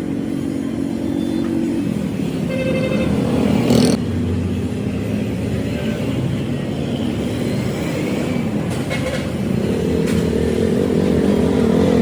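Road traffic: vehicle engines running past, with a short horn toot about two and a half seconds in.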